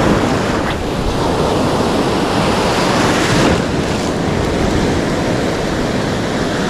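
Ocean surf washing and breaking in the shallow wash, a steady rushing noise, with wind rumbling on the microphone.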